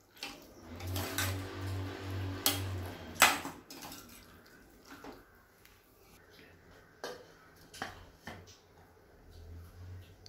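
Perforated steel spatula scraping and knocking against a stainless steel pan as thick lemon pickle masala is stirred, with the loudest knock about three seconds in. Later come a few sparser clinks as a steel lid is set on the pan.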